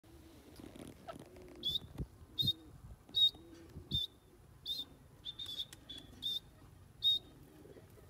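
Female grey francolin (teetar) calling: a series of about eight short, high-pitched notes, each well under a quarter of a second, spaced a little under a second apart.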